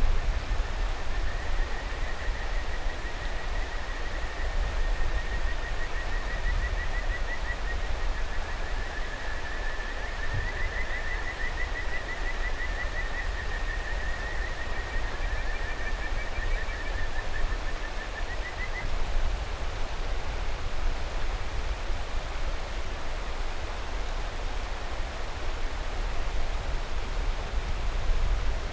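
Kajika frogs (Buergeria buergeri) calling: a high, warbling trill that wavers in pitch, joined briefly by a second, higher voice, and ends with a short rising note about two-thirds of the way through. Under it the steady rush of a mountain river.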